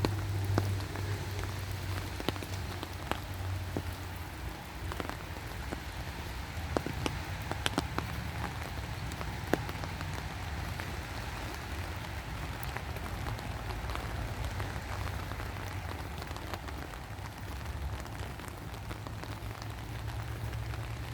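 Rain falling steadily, with scattered sharp drop hits close by and a low steady rumble underneath.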